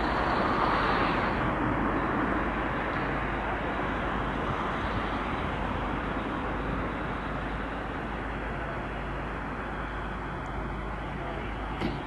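Steady rumble of heavy vehicle engines and traffic, louder for the first couple of seconds and then easing, with a single short knock near the end.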